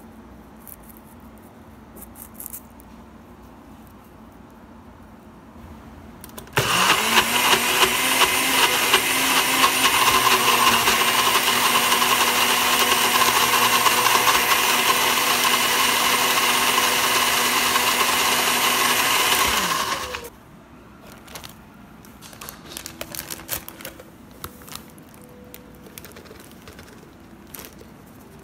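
NutriBullet personal blender motor pureeing parsley, rosemary, garlic and olive oil into a green marinade. It spins up sharply about six seconds in, runs steadily and loudly for about thirteen seconds, then winds down. Afterwards there are light scattered clicks and rustles of a plastic bag being handled.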